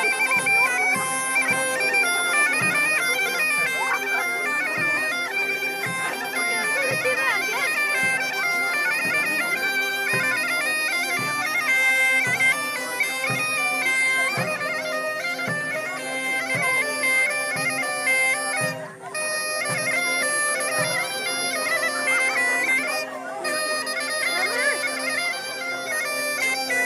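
Bagpipe music: a melody played over steady held drones, with a regular low beat underneath.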